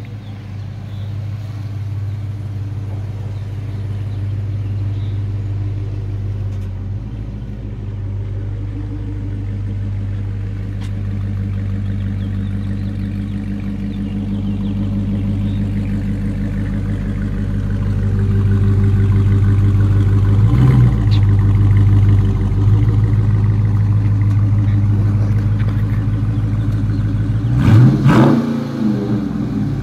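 Dodge Charger's 5.7-litre Hemi V8 running through its active exhaust with the valves held open by a pulled fuse: a steady low rumble that slowly grows louder. A quick rev up and back down comes near the end.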